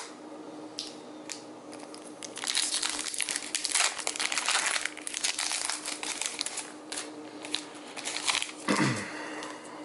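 Foil Pokémon TCG booster pack wrapper crinkling as it is torn open by hand and the cards are pulled out, densest through the middle, then in shorter rustles near the end.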